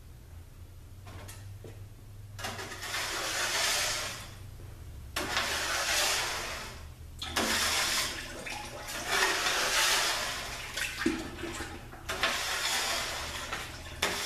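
Transmission fluid pouring out of a 6F35 automatic transmission case in several gushes of a second or two each.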